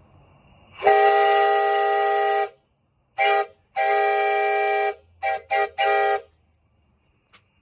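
Five-chime train whistle blown on compressed air, sounding one steady chord of several notes: a long blast, a short toot, another long blast, then three quick toots.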